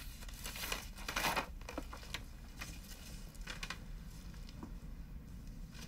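Rustling and crinkling, with a louder burst about a second in, then lighter rustles and a few faint ticks.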